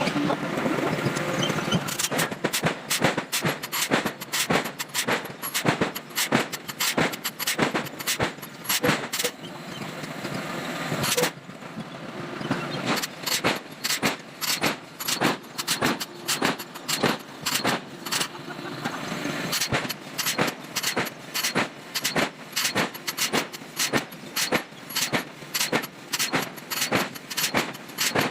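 Forging hammer blows on metal, repeated many times: irregular at first, then settling into an even beat of about one to two blows a second. About eleven seconds in, a steady rushing noise builds and cuts off suddenly.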